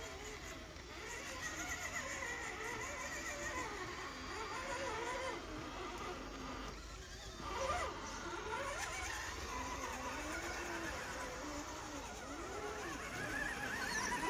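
Electric motor whine of a radio-controlled crawler, its pitch rising and falling as the throttle is worked.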